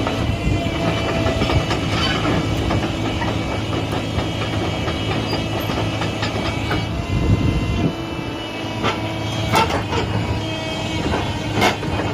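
Doosan 225LC-7 crawler excavator running, its diesel engine a steady drone under a rough mechanical clatter. Several sharp metallic clanks come in the last few seconds.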